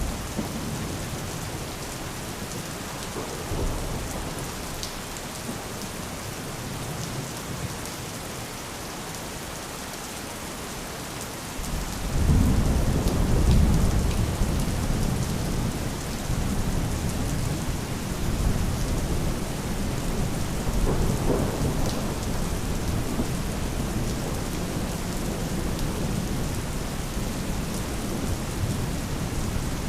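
Steady rain with distant thunder rumbling low beneath it. About twelve seconds in, a louder, longer rumble of thunder sets in and goes on for much of the rest.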